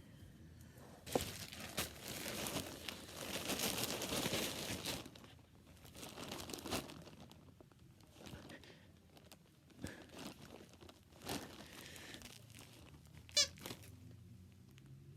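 Crinkling and rustling as something is handled, loudest for a few seconds early in the stretch, then quieter with scattered clicks and a short sharp squeak near the end.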